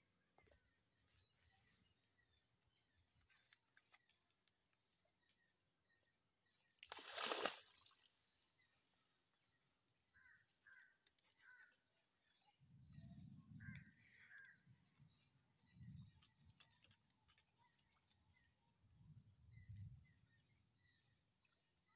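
Quiet pond-side ambience with a steady high hiss and faint bird chirps. A short splash about seven seconds in as the cast net is hauled out of the water, and a few dull low thumps later on.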